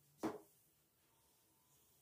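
A single short knock, like a hard object set down or bumped, about a quarter second in, against otherwise near-silent room tone.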